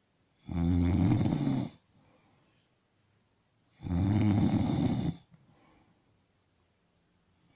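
Snoring: two long snores, each a bit over a second, about three seconds apart, with faint breathing between them and a third snore starting at the very end.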